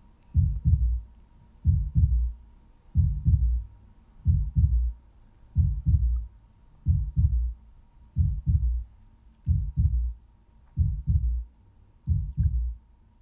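A slow heartbeat, each beat a low double thump (lub-dub), repeating evenly about every 1.3 seconds, roughly ten beats. A faint steady high tone sits underneath.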